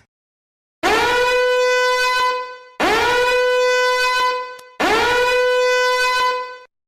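A horn blast sounded three times back to back, each copy identical and about two seconds long: the pitch scoops up at the start, holds one steady, buzzy note, then cuts off abruptly.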